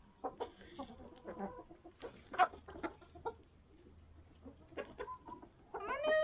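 Hens clucking and pecking at spilled barley on paving stones: a scatter of short clucks and taps. Near the end a rooster starts a loud crow that falls in pitch.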